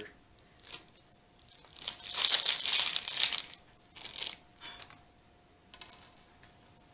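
Thin plastic minifigure packet crinkling and rustling as it is handled and opened, in several short bursts, the longest and loudest about two to three and a half seconds in.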